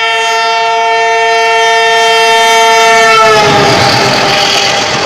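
Horn of an oncoming Indian Railways locomotive held as one long chord, dropping slightly in pitch about three and a half seconds in as the locomotive passes. The loud rush and clatter of its coaches passing alongside then takes over, with the horn still sounding more faintly.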